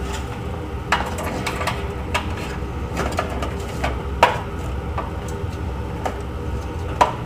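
Handling noise from work inside a PC tower case: a handful of sharp clicks and knocks of plastic and sheet-metal parts as cables and an optical drive are moved. The loudest knock comes about four seconds in, over a steady low hum.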